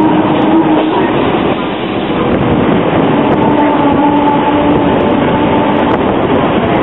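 Hong Kong double-deck electric tram running on its narrow-gauge track, heard from on board: a steady rumble of wheels and running gear. A steady hum of two notes joins about three seconds in.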